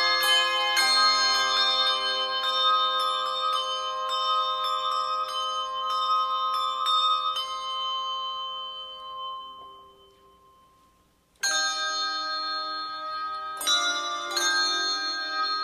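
Christmas music of ringing, struck bell-like notes that fades out about eight to ten seconds in, leaving a brief near-silent gap, then a new bell-heavy piece starts abruptly about eleven seconds in.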